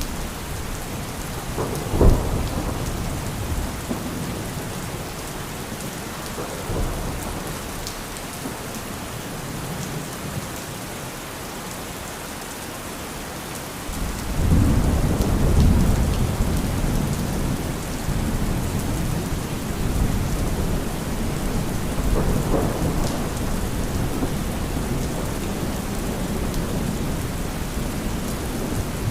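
Steady rain falling, with thunder: a sharp crack about two seconds in, then a long low rumble of thunder from about halfway through, and a fainter rumble later.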